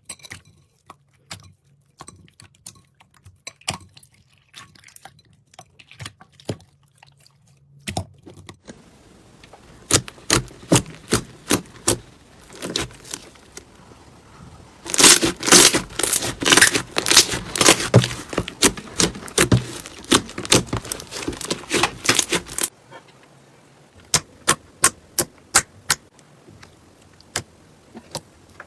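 Slime being squeezed and pressed by hand, giving quick crackling clicks and pops. They are sparse at first, come in a dense, louder run about halfway through, then thin out to evenly spaced pops near the end.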